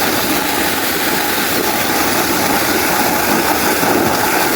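A sled sliding fast down a slope of solid ice: a steady, loud, rough scraping rush.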